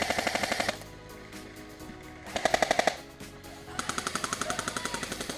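Airsoft electric gun firing on full auto in three bursts, a short one at the start, another about two seconds in and a longer one near the end. Each burst is a rapid run of about fifteen shots a second over the whine of the gearbox.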